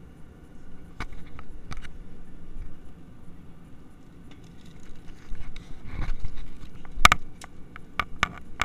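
Airliner cabin noise in flight, a steady low drone, broken by sharp clicks and knocks: two about a second in, then a cluster near the end, the loudest about seven seconds in.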